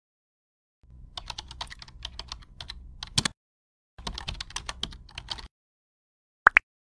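Computer keyboard typing in two quick runs of keystrokes, the first ending in a harder key hit, then two sharp clicks close together near the end.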